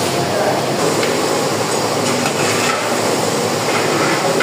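Long metal spatula scraping and knocking against a large aluminium cooking pot as mutton and sliced onions are stirred, over a steady hiss of frying in oil.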